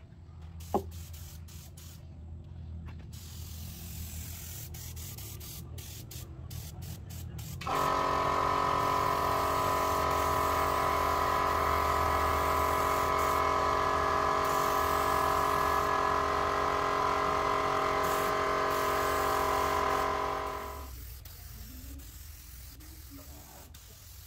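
Compressed-air gravity-feed spray gun spraying finish onto wood: a steady hiss with a strong even droning tone. It starts suddenly about eight seconds in and stops near twenty-one seconds. Before it there is a low hum and a sharp click just under a second in.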